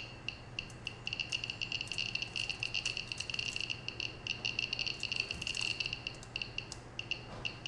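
DIY Geiger counter kit's buzzer giving short, high, irregular beeps, one for each particle the Geiger-Müller tube detects, coming fast while a thorium radiation source is held over the tube. The beeps thin out over the last second or two.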